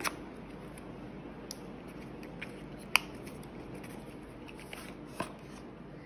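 White paperboard box of an Apple 20W power adapter being handled and opened, its inner tray slid out of the sleeve: light scrapes and ticks of card, with a few sharp taps, the loudest about three seconds in.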